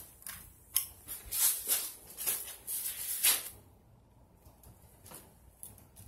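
Metal pull chains of a Hunter Clarion ceiling fan being pulled, jingling and clicking in a quick flurry of sharp rattles for about three and a half seconds, then only faint scattered clicks.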